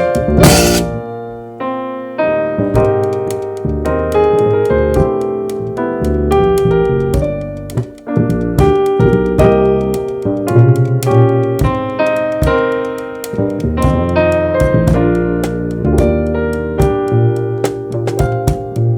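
Jazz piano trio playing: keyboard chords and melody lines over a bass line and drum kit, with a cymbal crash about half a second in.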